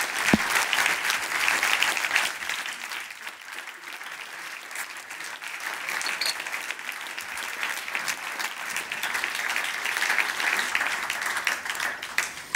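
A large audience applauding, easing off a little in the middle and swelling again before dying away at the end.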